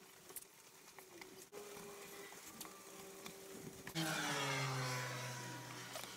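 Masking tape being pulled off its roll: a buzzy, screechy rasp that starts suddenly about four seconds in, slides down in pitch and fades, the loudest sound here, after a fainter steady squeal of tape unrolling.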